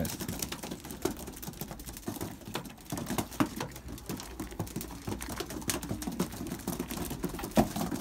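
Young racing pigeon pecking a mix of peas and grains out of a palm: quick, irregular clicks of the beak on seeds and skin.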